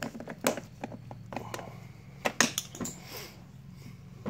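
Irregular clicks and knocks of tools and hard plastic heater-box parts being handled and fastened, over a steady low hum.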